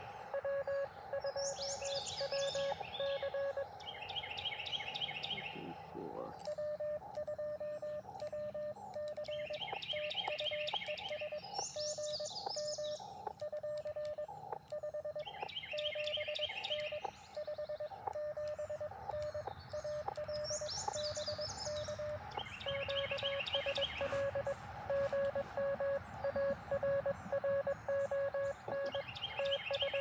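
Morse code (CW) beeps from an Elecraft KX2 ham radio transceiver, a single steady pitch keyed into dots and dashes throughout. A short upward-sweeping tone comes about six seconds in. Birds sing a repeated trilled phrase every few seconds over the beeping.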